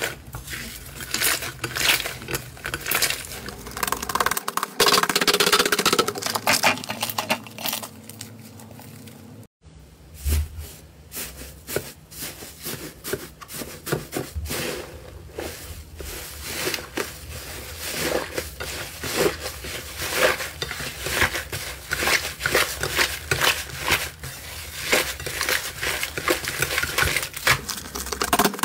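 Hands squeezing, kneading and pressing slime, giving a dense run of crackling, popping clicks, with a short break about a third of the way in.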